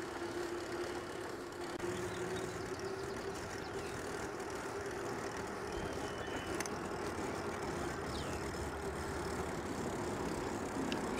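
Mountain bike rolling along a rough asphalt trail: steady tyre and wind noise with a constant low hum.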